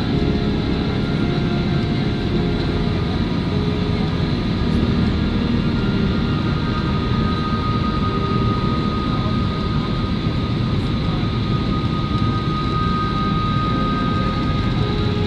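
Airliner cabin noise during the descent to landing: a steady rush of engine and airflow noise with a faint high whine that grows a little stronger midway through.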